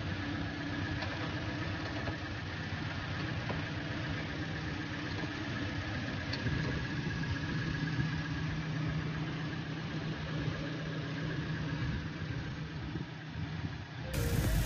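Toyota Innova petrol engine idling steadily with one battery terminal disconnected, kept running by its alternator with newly replaced rectifier diodes: a sign the alternator is charging again. The sound cuts off abruptly near the end.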